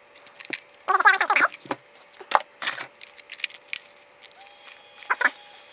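Plastic clicks from a Fuji Mini Dual Panorama compact film camera as it is handled and its buttons are pressed. About four seconds in, a small motor inside the camera starts a steady whir and runs for the last second and a half.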